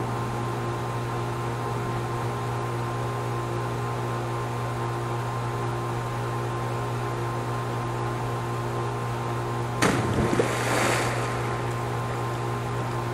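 A steady mechanical hum throughout. About ten seconds in, someone jumps into a swimming pool: a sharp smack on the water followed by a second or so of splashing.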